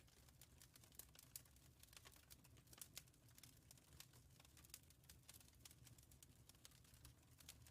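Wood fire crackling in a fireplace, quiet: irregular sharp snaps and pops, several a second, over a low steady rumble.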